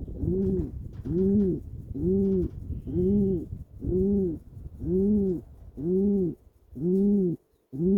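A pigeon cooing: a steady run of about nine low coos, roughly one a second, each rising and then falling in pitch.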